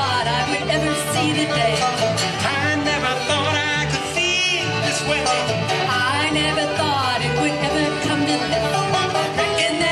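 Live bluegrass band playing an upbeat instrumental passage: upright bass plucking alternating notes on the beat under strummed acoustic guitar and banjo, with a lead line sliding between notes.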